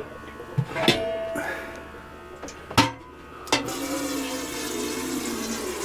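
Two sharp knocks, then about three and a half seconds in, water starts running steadily from a tap into a container.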